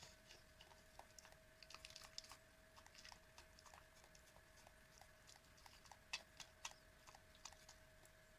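Elderly miniature dachshund eating soft homemade food: small, irregular wet chewing and mouth clicks, a few a second, with a couple of sharper clicks around six to seven seconds in.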